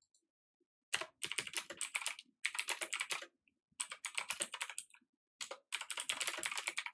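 Typing on a computer keyboard: rapid keystrokes in four quick runs with short pauses between them, starting about a second in.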